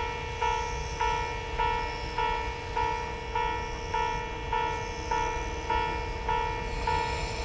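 Japanese level-crossing warning bell ringing in an even, repeating clang, a little under two strikes a second, as a slow diesel sightseeing train approaches, its low rumble underneath.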